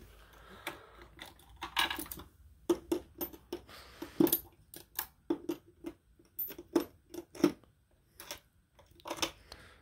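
Chrome steel crow's foot wrenches clinking against each other as they are lifted from and set back in their holder in a tool-cart drawer: a string of irregular light metallic clicks and clinks.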